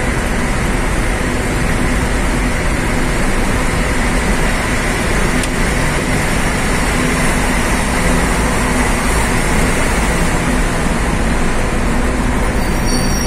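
Steady engine and tyre noise from inside a truck's cab driving through a road tunnel, a loud, unbroken rumble with a low engine hum.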